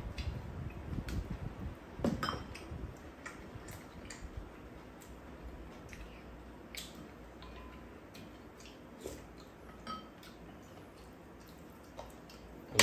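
Spoons clinking and scraping against bowls as two people eat bibimbap, in scattered light clicks at irregular intervals.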